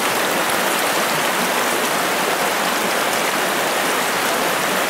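Trout stream water rushing steadily over rocks: an even wash of moving water.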